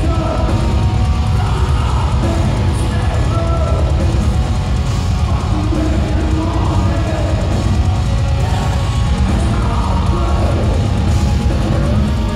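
Post-black metal band playing live: heavy distorted guitars over dense, rapid drumming, loud and steady throughout.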